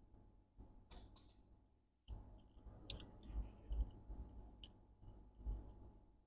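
Metal tweezers scraping and picking edge-bonding glue off the edge of a chip on a laptop logic board: a few faint, sharp clicks and ticks over low handling bumps.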